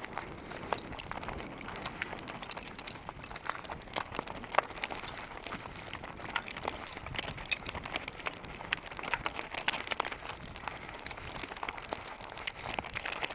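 Unicycle tyre rolling over a loose stony track on a downhill, crunching gravel with many irregular sharp clicks and rattles of stones.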